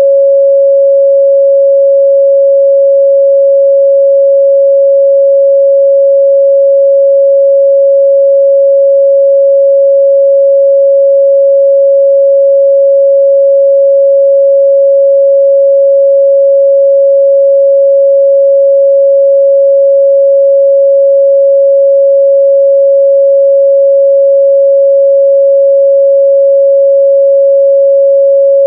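A steady 553 Hz sine-wave test tone, a single pure pitch held at a constant loud level.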